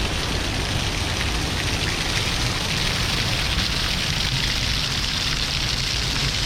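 Water rushing over rocks in a river cascade, a steady even hiss with no break.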